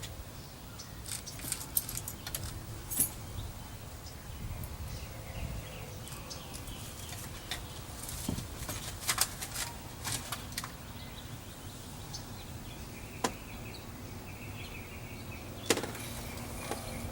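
Scattered light clicks, taps and small rattles of plastic interior door trim and its small parts being handled and fitted, over a low steady background hum.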